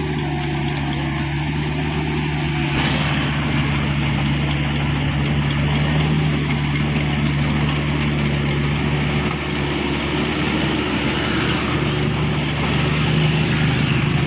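An engine running steadily at a constant speed, with a broader rushing noise joining in about three seconds in and carrying on over it.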